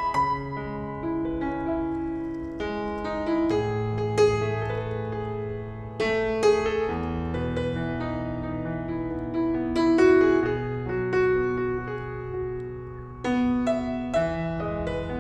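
Slow instrumental background music led by piano, with sustained chords and notes struck every second or so.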